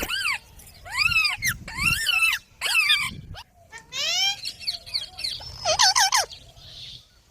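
Indian ringneck parakeets calling: a run of loud, harsh calls about half a second each, rising and falling in pitch, with a quick series of short notes about six seconds in.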